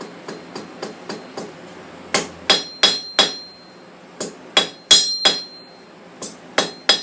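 Hand hammer striking hot steel on an anvil, flattening a scrolled bar. A run of light taps is followed by heavier blows in three groups of three or four, each with a short metallic ring.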